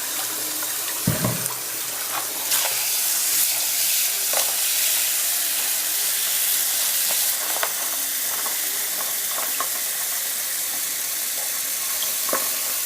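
Water running steadily from a tap into a container, a continuous hiss, with a dull knock about a second in and a few light clicks.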